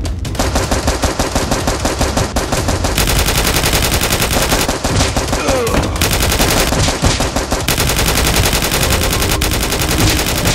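Continuous rapid automatic gunfire, shot after shot in a fast, even rattle, as dubbed in for a Nerf-blaster shootout.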